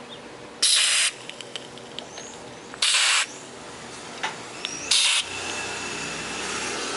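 Three short bursts of aerosol spray hissing through a thin red extension straw into an amplifier circuit board's potentiometers, each lasting about half a second. Birds chirp faintly in the background.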